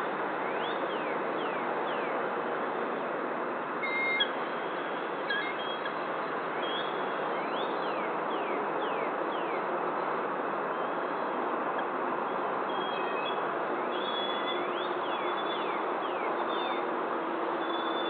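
Bird calls in short series of quick rising-and-falling notes, three bouts of them, over a steady background rush.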